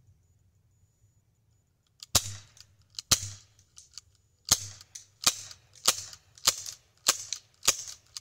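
Glock 19 air pistol firing, starting about two seconds in: two shots a second apart, then a steady string of shots roughly every 0.6 seconds, about eight in all.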